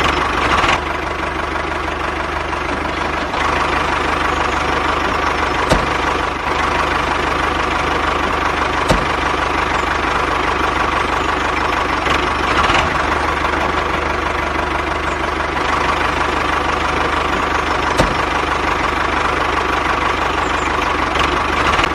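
Small electric motor of a homemade toy tractor running steadily as it drives along: a continuous buzzing drone, with a few sharp clicks along the way.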